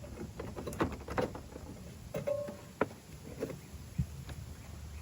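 Scattered clicks and light knocks from plastic trim clips and car trim being worked loose by hand, with a brief squeak about two seconds in.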